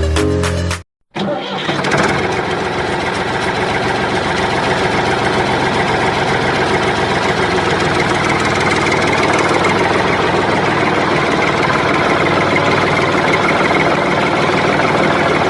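An engine starting about a second in, then running steadily.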